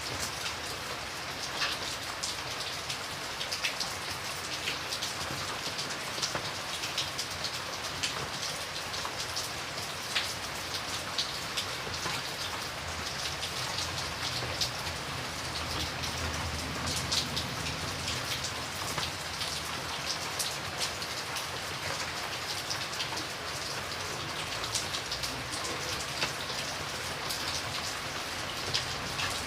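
Steady rain falling, an even hiss with many distinct drops ticking sharply on a surface.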